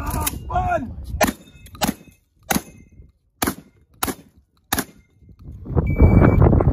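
A string of about seven gunshots from a long gun, fired at an uneven pace roughly half a second to a second apart, each with a short echo. About six seconds in, heavy wind buffeting on the microphone takes over.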